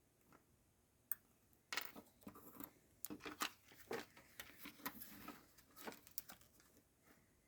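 Small clicks, taps and short scraping rustles from small tools and parts being handled on a workbench during soldering work. A sharp click about a second in, then a busy run of them until near the end.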